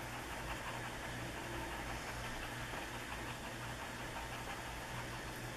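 Faint scratching of a colored pencil shading on paper, over a steady low hum.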